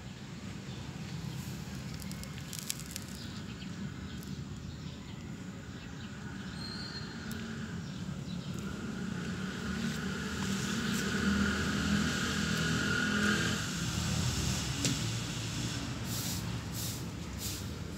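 Outdoor background noise with a motor vehicle going by: a low hum that grows louder about halfway through and fades a few seconds later. A few faint clicks near the end.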